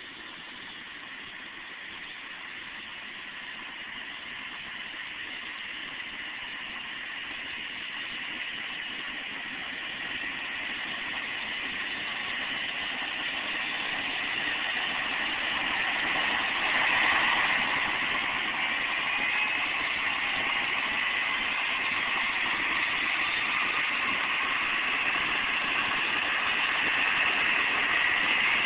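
Medical helicopter's turbine engine spooling up on the ground ahead of takeoff, growing steadily louder, with a whine that rises in pitch about halfway through.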